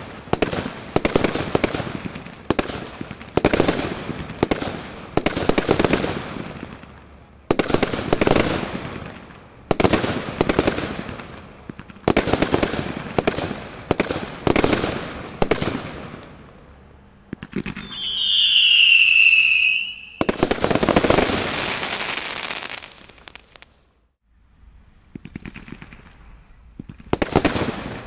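Brothers 'Grand Slam' Category 3 high-noise fireworks firing volley after volley of aerial shots, each a burst of bangs with a crackling tail. About 18 seconds in, a shrill whistle falls slightly in pitch for about two seconds. There is a brief lull near the end before the shots start again.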